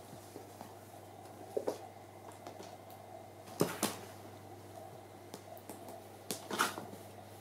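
Quiet room with a steady low hum, broken by a few short rustles and scuffs of a hand and a kitten moving on a quilted bedspread. The loudest comes about halfway through and another cluster near the end.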